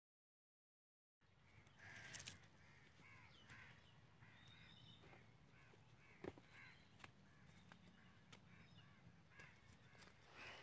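Birds calling outdoors, faint: many short calls repeating, after about a second of silence at the start. A few faint clicks come in between, the loudest about six seconds in.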